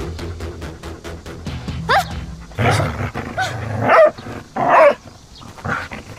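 Background music, then a puppy gives a short rising yelp about two seconds in, followed by three short barks.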